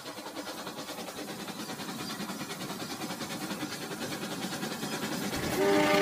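Battery-powered Rail King toy train running along plastic track, its motor and wheels making a fast, even ticking that grows louder as it approaches. A steady horn tone comes in near the end.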